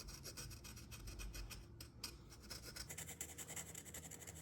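Faint, quick scratchy strokes on a repaired plastic part as paint is put on it.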